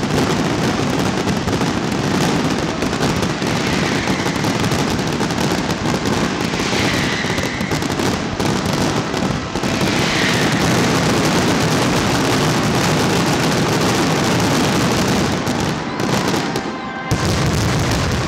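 Aerial fireworks finale: a dense, continuous barrage of many shells bursting at once, with crackling and bangs overlapping without a break, and a few whistles in the first half. About a second before the end the barrage dips briefly, then comes back loud.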